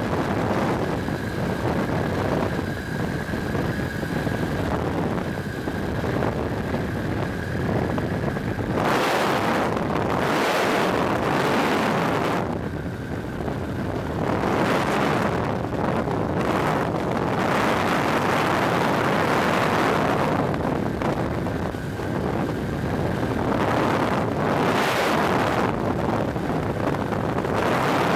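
Pegasus Quik flexwing microlight in flight: its Rotax 912S engine running steadily under heavy wind rush on the microphone, which swells in strong gusts several times.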